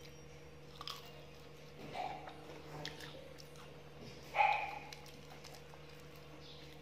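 Fried chicken drumstick being pulled apart by hand, with a few brief soft crackles from the crispy coating over a steady low hum. About four and a half seconds in comes one short, louder voice-like sound.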